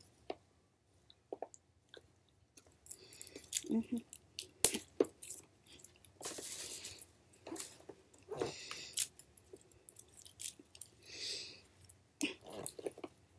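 Plastic packaging being bitten and pulled at with the teeth and picked at by hand: irregular crinkling, clicks and snaps, with one loud sharp click a little under five seconds in.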